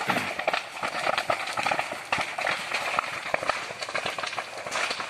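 Dry grass and brush burning, crackling with many irregular snaps and pops over a steady hiss.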